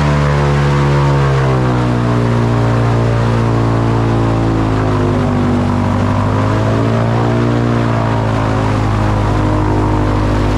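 Airboat engine and propeller running loud and steady, its pitch dropping about a second and a half in and sagging and rising again around the middle as the throttle changes.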